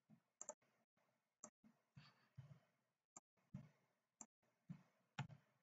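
Near silence with a few faint, scattered mouse clicks.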